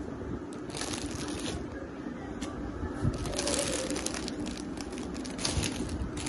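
Clear plastic bags around stuffed toys crinkling as a hand handles them, in two main spells, one about a second in and another from about three seconds on, with scattered crackles between.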